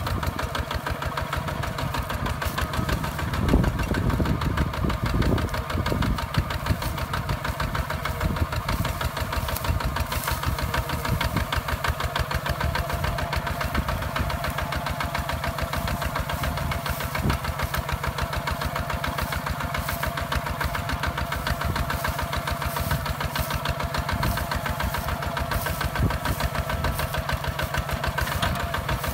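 Single-cylinder diesel engine of a Hinota HG Gold 155 DI two-wheel walking tractor running steadily with a rapid, even beat while it pulls a plough through soil. The engine swells briefly louder and lower about four seconds in.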